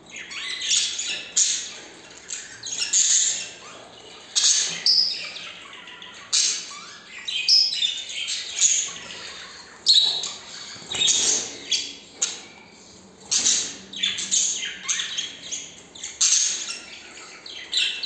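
Budgerigars chirping and chattering in a cage, short calls and pitch-gliding squawks coming in quick bursts with brief gaps between them.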